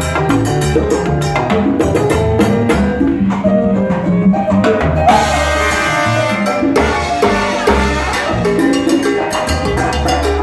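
Live salsa band playing, with Latin percussion and bass driving a steady rhythm. A brighter, noisier burst comes about five seconds in.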